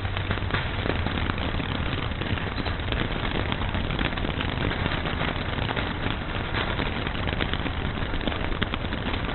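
Fireworks crackling: a dense, continuous run of small pops with no single big bang.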